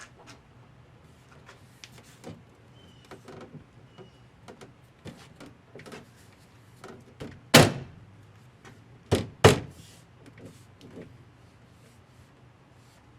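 Work on a pickup truck door: light clicks and rattles of parts being handled, then three loud, sharp knocks. The first comes a little over halfway through, and the other two follow close together about a second and a half later.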